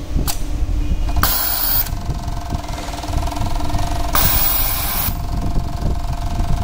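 JUKI overlock sewing machine, converted to an HMC direct-drive servo motor, running and stitching fabric with a fast steady tone. Two hissing bursts of air from its pneumatic air suction, about a second in and again about four seconds in.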